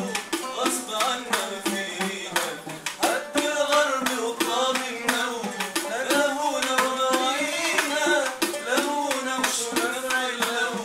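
Arabic ensemble music: ouds and a violin playing the melody over a steady, quick frame-drum beat.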